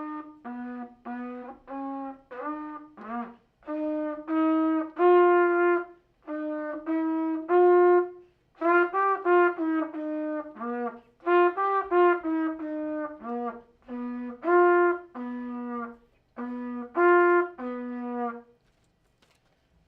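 Solo trumpet playing a melody of short separated notes and some longer held ones, stopping about a second before the end.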